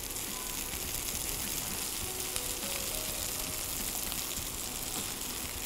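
Chicken pieces sizzling steadily in a little oil on a hot tawa (flat griddle pan).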